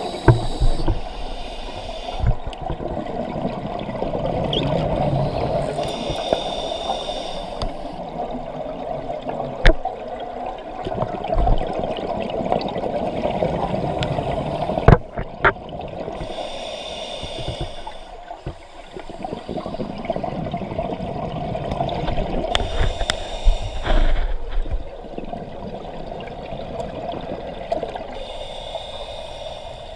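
Scuba diver breathing through a regulator underwater: exhaled bubbles gurgle out in five bursts, about every six seconds, over a steady underwater hum.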